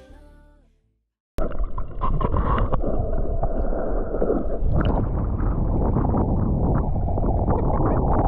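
A music track fades out in the first second. After a brief silence, the sound of an action camera in seawater cuts in abruptly: a dense, low rumbling wash of water, which thins in the upper range about halfway through as the camera moves from underwater footage to the surface, where moving water and wind buffet the microphone.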